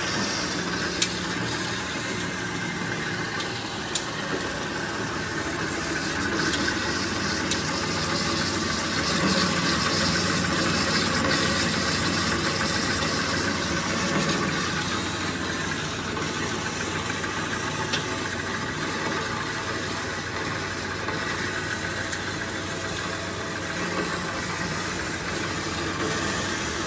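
Kalamazoo H9AD horizontal metal-cutting bandsaw running steadily on its three-phase motor, the blade sawing through thick metal stock. A few sharp ticks come through now and then.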